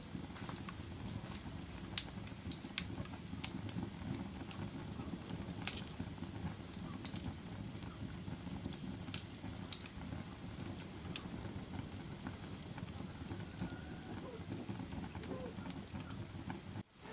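Fire burning with a steady low rumble and irregular sharp crackles and pops, the loudest about two seconds and six seconds in. The sound briefly drops out near the end.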